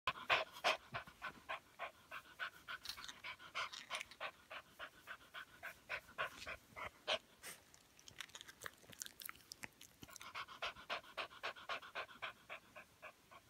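Small curly-coated dog panting fast, about four breaths a second, in a pain attack from hydronephrosis; the panting eases briefly about eight seconds in, then picks up again.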